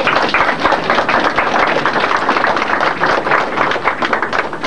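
Crowd applauding: many hands clapping together in a dense, steady patter.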